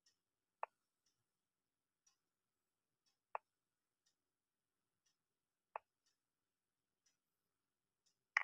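Chess program's piece-move sound effect: four sharp clicks about two and a half seconds apart as moves are played, the last the loudest. A faint tick about once a second runs between them.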